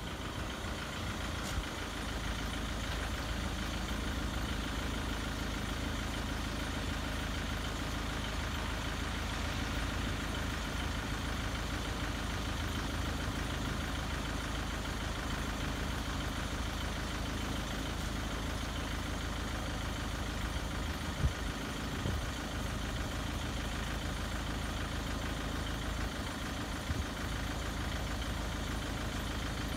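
A steady engine running at idle, unchanging throughout, with a brief knock about two-thirds of the way through.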